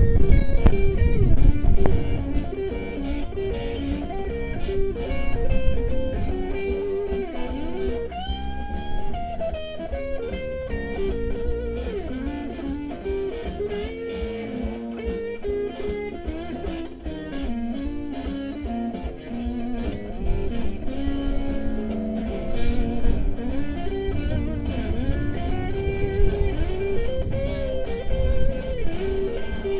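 Live blues guitar solo on an amplified acoustic guitar: single picked notes with bent, sliding pitches, over a low, steady band backing. Loudest for the first couple of seconds.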